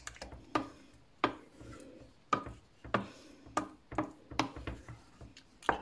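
Wooden spoon stirring a thick cheese sauce in a stainless steel saucepan, scraping and knocking against the pan's sides and bottom in a run of short strokes, about one to two a second.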